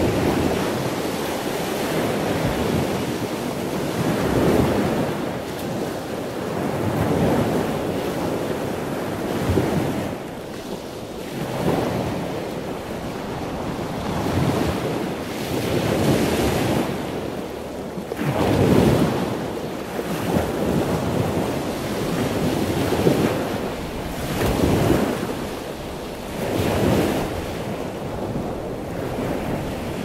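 Moving water rushing steadily, swelling and easing in repeated surges every two to three seconds, like waves washing in.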